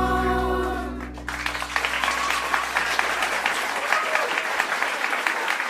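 The last held chord of a song with instrumental backing dies away, and about a second in many people break into applause that keeps going.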